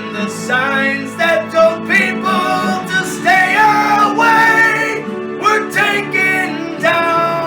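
A song: a sung melody over plucked guitar accompaniment, with no words made out.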